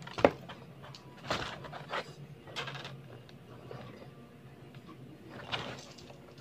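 Handling noise from a scissor-arm mic stand and its small plastic and metal mounting parts: scattered clicks, knocks and rustles as the pieces are turned over and fitted. The sharpest click comes about a quarter of a second in.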